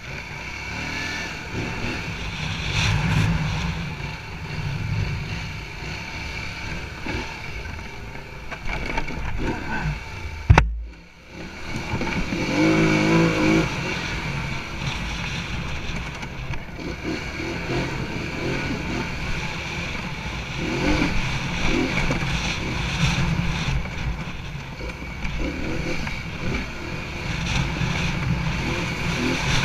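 ATV engine running under load with heavy wind on the microphone. About ten seconds in there is a single sharp knock, after which the sound briefly drops out.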